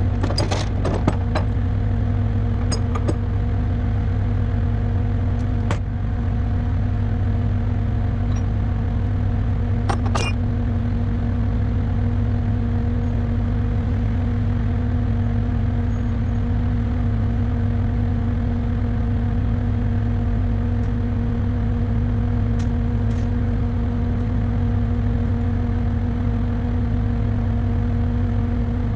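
Heavy diesel engine running at a steady, unchanging speed, with a few sharp metallic clicks and knocks, most of them in the first ten seconds.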